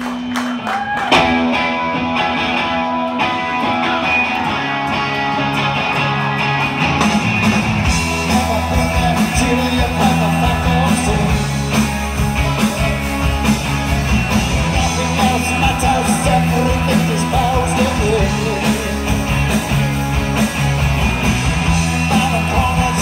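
A live rock band plays through a PA, with electric guitars, drums, bass and keyboards and a male lead vocal. The bass and drums come in fuller about eight seconds in.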